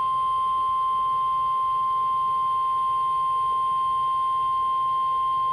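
NOAA Weather Radio's 1050 Hz warning alarm tone: a single steady, unbroken tone with a faint higher overtone, the alert signal that heralds a severe thunderstorm warning about to be read.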